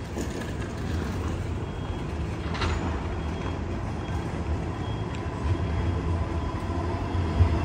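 City tram approaching on street rails: a low rumble that grows louder near the end as it comes close, with a faint steady whine over it.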